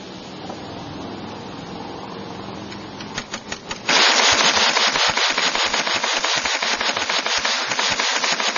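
Replica 1885 ten-barrel hand-crank Gatling gun in .22 LR firing: a few scattered shots about three seconds in, then a loud, rapid, unbroken string of shots from about four seconds in as the crank is turned.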